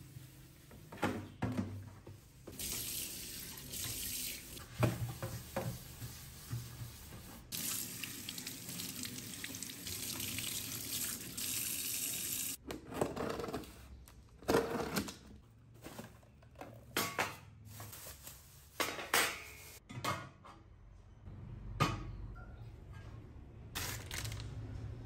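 Kitchen tap running into a stainless-steel sink while it is rinsed and wiped by hand, the water shutting off about halfway through. After that, a string of short knocks and rubbing against the steel sink.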